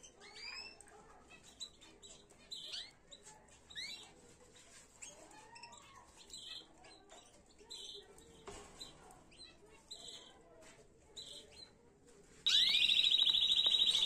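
Domestic canary singing: scattered short chirps and rising whistled notes, then about twelve seconds in a much louder, rapid trill starts and holds.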